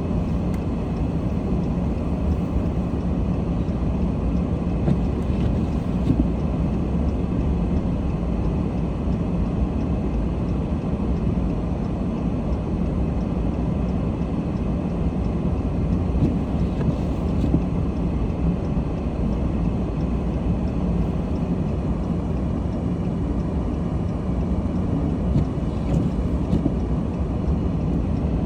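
Steady low vehicle rumble that goes on evenly, with no distinct events.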